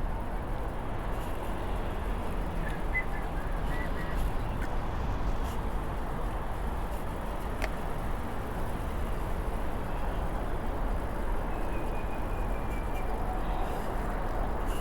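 Steady wind rush and road rumble from riding downhill, picked up by the action camera's microphone. A faint high tone comes in briefly twice, and there is a single click about halfway through.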